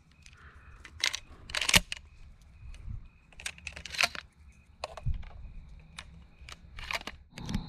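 Scattered sharp clicks and rustles, about seven in all and the loudest a little under two seconds in, with quieter spells between and a faint high steady note at times.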